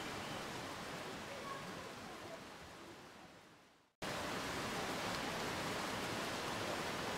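Steady noisy hubbub of a crowded railway platform, with no distinct event standing out. It fades away to silence about four seconds in, then cuts back in abruptly at full level.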